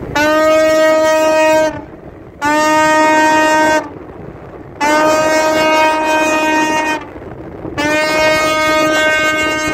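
Tugboat horn sounding four long steady blasts, each about one and a half to two and a half seconds, with short gaps between them. Wind and water noise fill the gaps.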